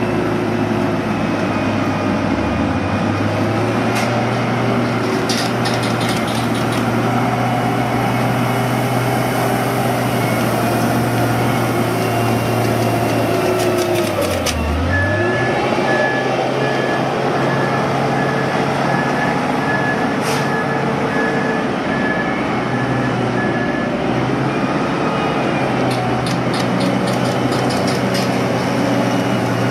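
Heavy road-construction machinery running steadily, its engine hum dipping sharply in pitch and recovering about halfway through. A backup alarm beeps steadily for about nine seconds after the dip. Short bursts of rattling come twice.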